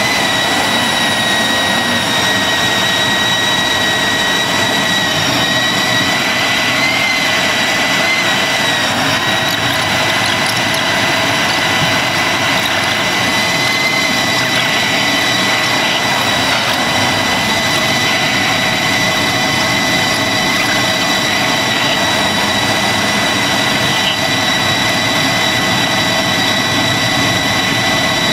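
Antonov An-225 Mriya's six turbofan engines running steadily, heard from inside the cockpit as a loud even rush with a steady high whine over it.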